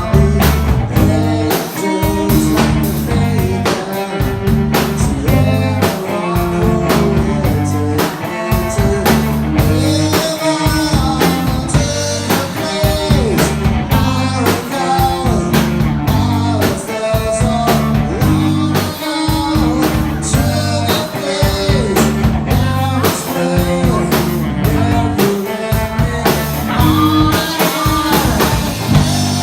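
Rock band playing live: electric guitar, bass and drum kit keeping a steady beat, with a bending melodic line over them.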